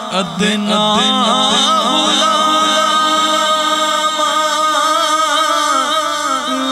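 Voice singing a Punjabi naat, a devotional song, in a wavering, ornamented melody over a steady held tone.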